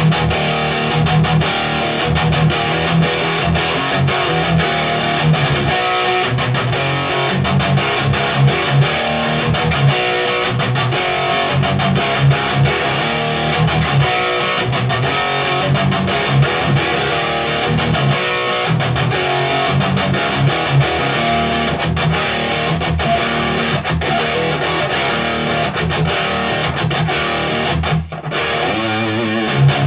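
Electric guitar with a humbucker through a Randall Diavlo RD20 tube amp's high-gain channel, cranked, playing a fast, heavily distorted metal riff with many quick, repeated low notes. The playing drops out briefly near the end before picking back up.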